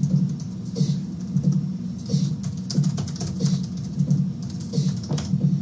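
Typing on a computer keyboard: a quick, uneven run of key clicks, over background music with a low, pulsing beat.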